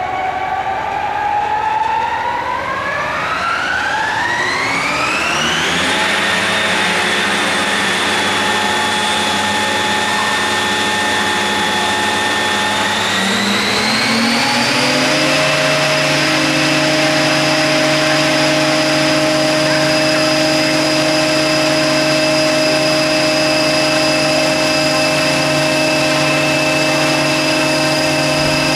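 Radio-controlled MD 500E scale helicopter spooling up on its skids, its motor and rotor making a whine that rises over the first six seconds and holds steady. About thirteen seconds in it climbs again over two seconds to a higher steady pitch.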